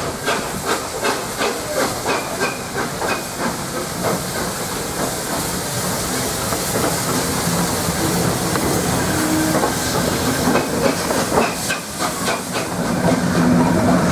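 LNER A4 Pacific steam locomotive No. 4464 'Bittern' moving slowly past, its steam hissing steadily. A run of quick rhythmic beats in the first few seconds fades as the engine draws alongside, and a few more come near the end.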